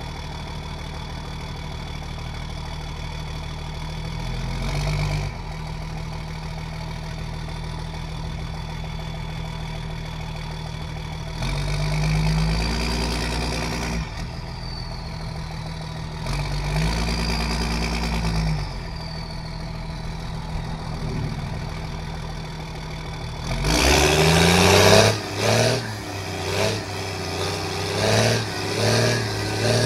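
A 1994 Dodge 3500's 5.9-litre Cummins 12-valve turbo-diesel running at low revs through an upright exhaust stack in the bed, with a few brief throttle rises. About 24 seconds in, it goes to hard throttle with a run of loud rising and falling surges as the truck pulls and blows black smoke.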